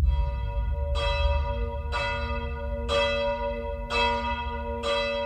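A single church bell tolling, struck about once a second, each stroke ringing on under the next, over a steady low rumble.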